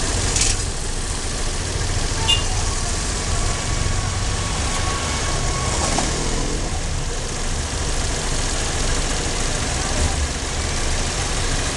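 Motor scooter engine idling close by, a steady low sound.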